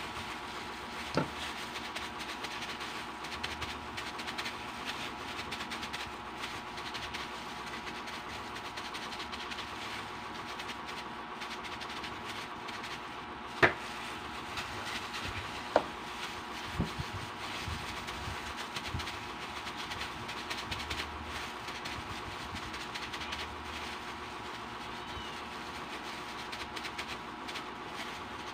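Gloved hand mixing a malunggay patty mixture in a bowl, with a few sharp clicks of the metal spoon knocking against the bowl, the loudest two around the middle, over a steady background hum.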